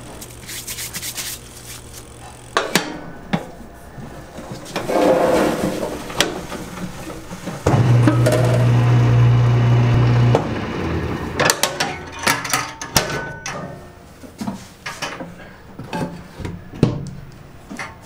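Crumbly buckwheat noodle dough being worked in a stainless-steel dough mixer: scraping and rubbing with frequent knocks and clicks of the metal paddle rods and tub. A motor hums for about three seconds in the middle.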